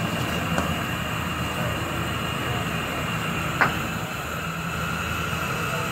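Steady roar of a gas stove burner under an aluminium pot of boiling chai, with a single sharp metallic clink of the steel ladle against the pot about three and a half seconds in.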